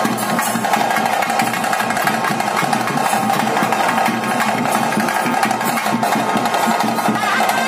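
Traditional kola ritual music: fast, dense drumming over a steady held reed-pipe tone, typical of the nagaswara-and-drum band that accompanies a Tulu bhuta kola.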